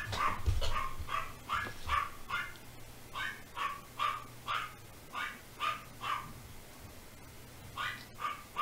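Dogs barking over and over, about two to three barks a second, with a short break near the end before a couple more barks.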